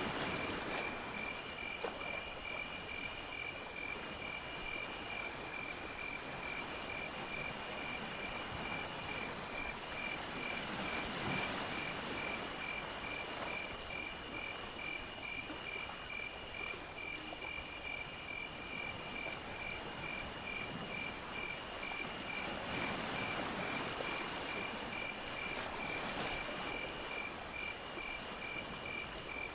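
Chorus of insects: a cricket's steady, rapidly pulsing trill over a high-pitched insect drone that swells briefly every few seconds.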